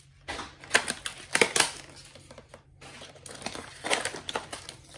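Clear plastic toy packaging crinkling and crackling as it is gripped and pulled at, in irregular sharp crackles, the loudest at about a second and a half in and near four seconds.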